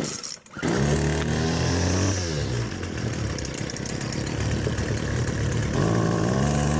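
Poulan Pro string trimmer's small two-stroke engine pull-started, catching within the first second and idling briefly, running on straight gasoline with no two-stroke oil in the fuel. About two seconds in it goes up to high revs and holds there, drops back near the end, then starts climbing again.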